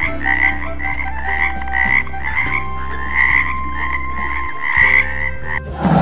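A toad calling: a high-pitched croak repeated about twice a second. Just before the end, a loud roar cuts in.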